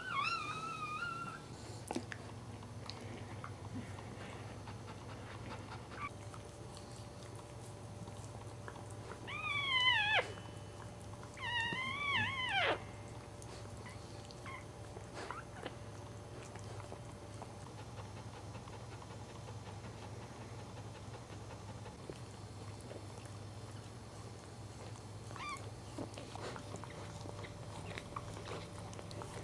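Newborn Cairn Terrier puppy crying in high-pitched cries: a short one at the start, then two longer wavering cries about a third of the way through that each fall sharply in pitch at the end, and a faint one near the end.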